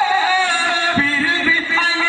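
A man singing a ghazal verse in the sung style of mushaira recitation (tarannum), into a microphone, drawing out long wavering notes.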